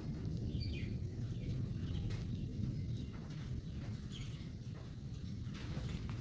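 Birds chirping a few short calls over a steady low rumble.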